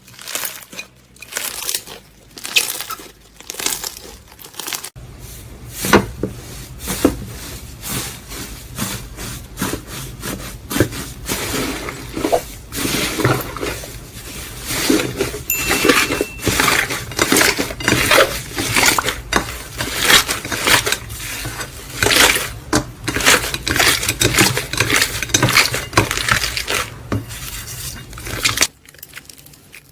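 Slime being squeezed, pressed and stretched by hand, giving a dense run of crackling clicks and pops. About five seconds in the sound cuts to a clip with a low steady hum under the crackling, which cuts off near the end.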